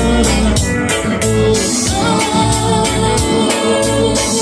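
Live band music: a man singing while playing an electronic keyboard, backed by electric bass guitar and a steady beat.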